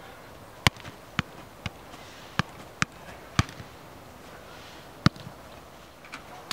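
Soccer ball being kept up: six sharp thuds of touches roughly half a second apart, then a pause and two more single thuds of the ball.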